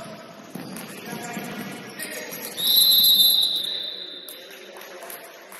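Referee's whistle blown once in a single long, shrill blast of about a second and a half, starting about halfway through, over the general noise of the gym.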